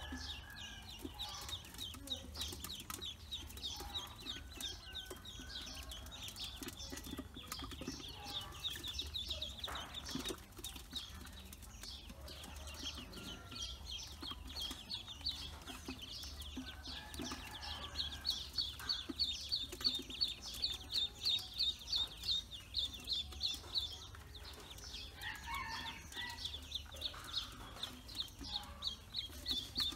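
A brood of about a dozen newly hatched ducklings peeping: a constant run of quick, high-pitched peeps that gets louder and more rapid a little past halfway.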